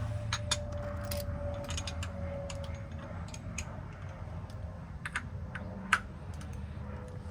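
Irregular light clicks and clinks of the oil filter housing and hand tools being handled, with the sharpest click about six seconds in, as the housing is fitted back on under the car. A steady low hum runs underneath.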